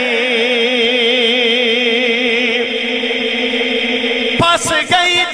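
Male voice singing unaccompanied Punjabi Sufi kalam, holding one long vowel with a wide, even vibrato. A little over four seconds in, the note breaks off in a brief, uneven stretch before the next phrase begins.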